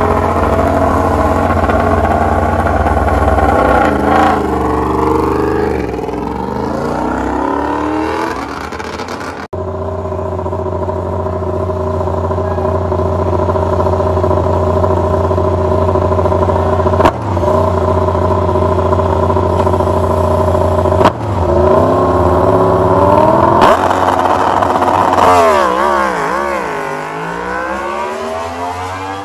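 2020 Yamaha YZR-M1 MotoGP bike's crossplane inline-four engine running at a steady, loud idle, blipped up several times. Near the end the revs climb and drop in quick succession as the bike rides off.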